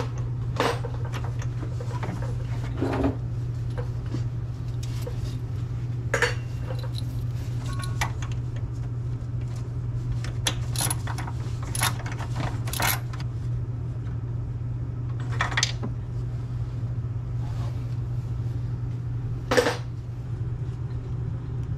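Socket wrench on an extension working spark plugs out of an air-cooled VW engine: scattered short metallic clinks and clicks of the tool against the engine, a few seconds apart, over a steady low hum.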